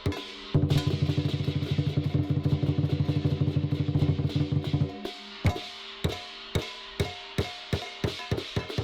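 Chinese lion dance percussion: a fast roll on the big drum from about half a second in until about five seconds, then single drum strikes about two a second, with ringing tones carrying between them.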